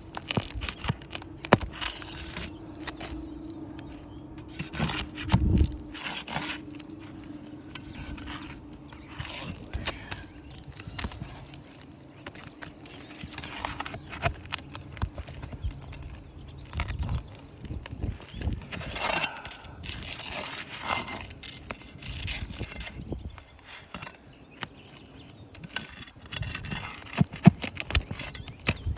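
A horse walking on loose ground: irregular knocks and scrapes of its hooves, with some metallic jingling.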